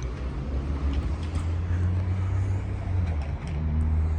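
A motor vehicle's engine running close by, a steady low hum that grows louder about a second in, over the noise of street traffic.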